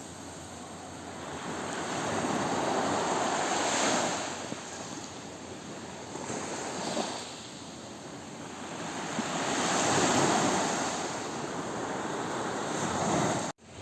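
Ocean waves breaking on the shore, the surf rising and falling in slow swells a few seconds apart. The sound cuts out for a moment near the end.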